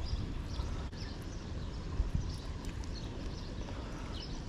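Outdoor ambience at a creek: a steady, uneven low rumble on the microphone with faint, scattered bird chirps.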